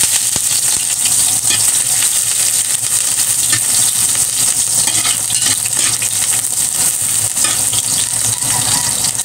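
Sliced ginger sizzling in hot oil in an aluminium wok, a steady loud hiss, while a metal spatula stirs it, with frequent small scrapes and clicks of metal on the pan. This is ginger being sautéed in oil that is already hot.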